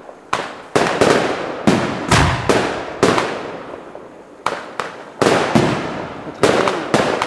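Aerial firework shells bursting in quick succession: more than a dozen sharp bangs, each trailing off in an echoing tail, with a short lull around the middle.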